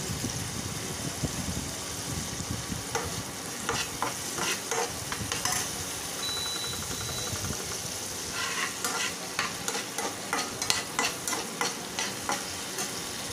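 Chopped onion, capsicum and tomato sizzling in oil in an aluminium kadai, stirred with a metal slotted spatula that scrapes and clicks against the pan; the strokes start about three seconds in and come thickest in the second half. About six seconds in, an induction cooktop gives a single high beep lasting about a second as its power setting is changed.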